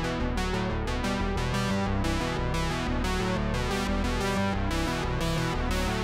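Background music played on synthesizer and electric keyboard, with a steady beat.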